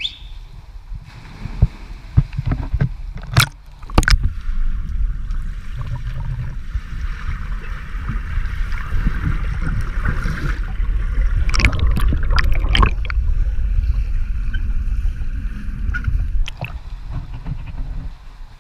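Splashing as an action camera plunges into pool water, then a heavy muffled underwater rushing and bubbling from a swimmer's movements, heard through the submerged camera, with more splashes in the middle; the sound drops and thins near the end as the camera comes back above the surface.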